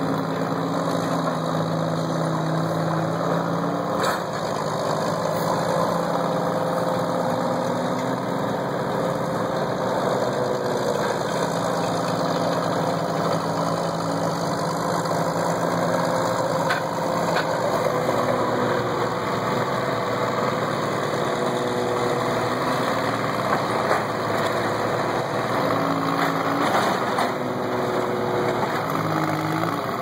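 Diesel engine of a small Northwest cable-operated backhoe running steadily, its pitch dipping and rising repeatedly as the machine works. A few faint knocks are heard.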